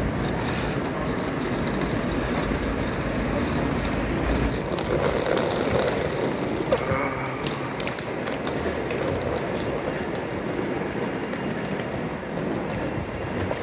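Wheeled suitcases rolling over paving and hard floor: a steady rattle of small wheels with scattered clicks.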